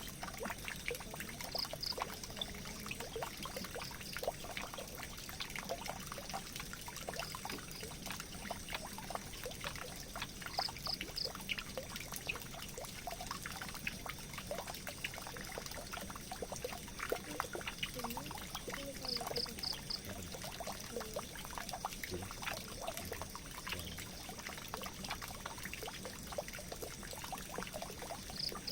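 Water running steadily into a drain, a constant trickling and pouring of small splashes. A brief high run of three or four quick ticks recurs about every nine seconds.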